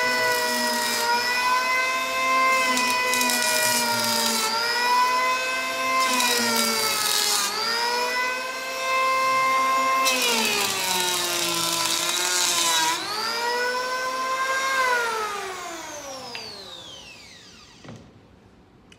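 Makita handheld electric power planer cutting cedar: its motor whine sags in pitch each time the cutter roller bites into the wood, with a loud hiss of shavings during each of about four passes. Near the end it is switched off and the whine falls steadily as the cutter roller spins down.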